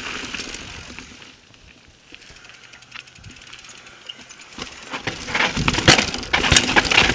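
Norco Range mountain bike descending a rough trail and rock slab: quiet tyre rolling at first, then from about two-thirds in a dense clatter of knocks and rattles as the bike bumps over rough ground.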